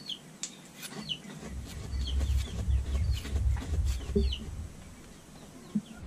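Bolo knife cutting and shaving a piece of coconut husk into a sharp-edged scraper, with faint cutting strokes. Short high chirping bird calls repeat throughout, and a low rumble rises in the middle.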